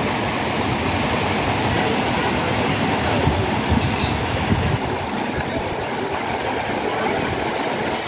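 Mountain stream rushing over granite rock cascades into a pool: a steady roar of water, with a low buffeting rumble of wind on the microphone.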